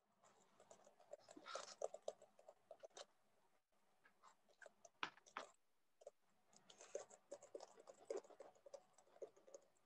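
Near silence with faint, scattered clicks and small rustles.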